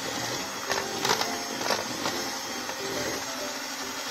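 Electric hand mixer running steadily, its beaters whirring through thick cake batter, with a few light clicks about a second in.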